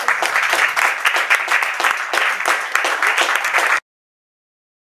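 Audience applauding with dense, steady clapping that cuts off suddenly near the end.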